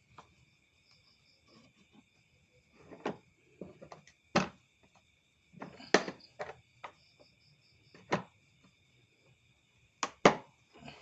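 A handful of sharp knocks and clacks, irregularly spaced, about six in all, with two close together near the end. Crickets chirr steadily and faintly behind them.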